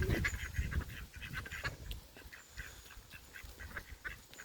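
Ducks quacking: a string of short calls, busier in the first couple of seconds and then sparser, over a low wind rumble that dies away about two seconds in.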